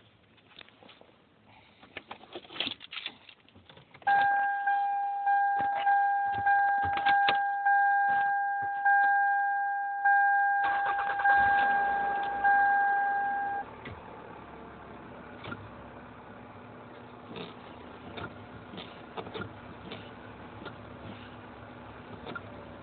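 A car's dashboard warning chime sounds about one and a half times a second, starting about four seconds in. About eleven seconds in, the 2000 Toyota Solara's 5S-FE four-cylinder engine starts, and the chime stops a few seconds later. The engine then idles steadily, with light clicks as the brake pedal is worked.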